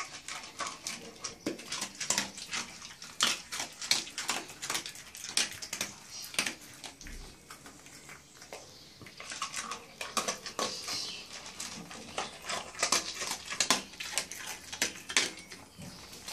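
A small dog eating dry kibble from a metal bowl: a dense, irregular run of crunches and clicks as it chews and the kibble knocks against the bowl.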